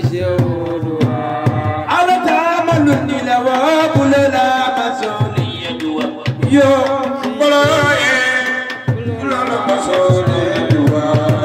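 Male devotional singing into microphones, amplified through a sound system, a wavering melody with long held notes over a steady drum beat.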